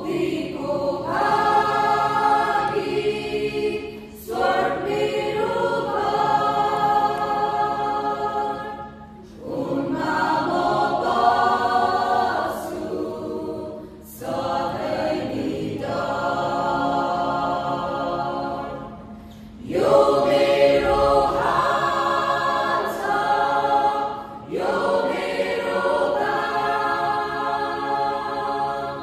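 Mixed choir of women's and men's voices singing a gospel song in phrases of about five seconds, with short breaks between phrases.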